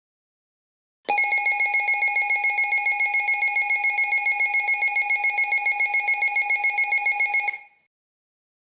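Electronic emergency-alert attention tone, a buzzy two-pitched alarm pulsing in rapid, even beats for about six and a half seconds. It starts about a second in and stops shortly before the next alert message.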